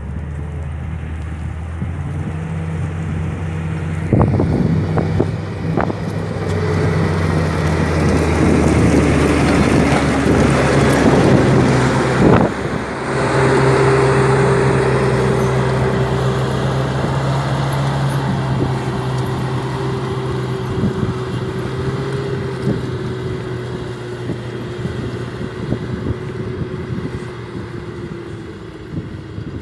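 Komatsu motor grader's diesel engine running steadily as it plows snow, loudest as it passes close, with a rush of noise that swells and cuts off about twelve seconds in. The engine then fades gradually as the grader drives away.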